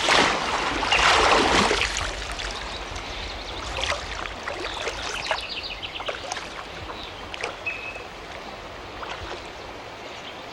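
Water splashing as a person is lowered under and lifted out of river water in a baptism by immersion, loudest in the first two seconds. Then scattered splashes and dripping as he stands back up.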